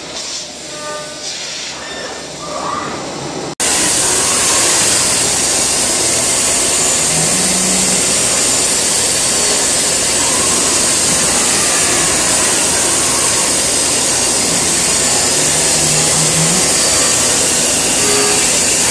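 Soft music with sustained tones, then, after a sudden cut about three and a half seconds in, a CNC milling machine's cutter milling a metal workpiece: a loud, steady, hissy noise strongest in the high range.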